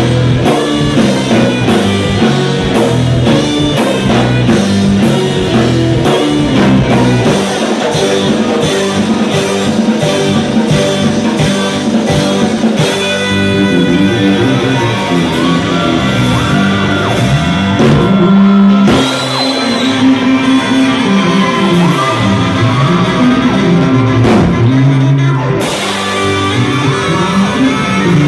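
A rock band playing live in a large room, with drums, electric guitar, keyboard and saxophone and a singer's voice.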